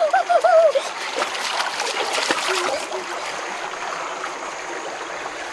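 Water splashing in a shallow rocky stream, thickest between about one and three seconds in, then the stream running steadily. A brief wavering vocal cry opens it.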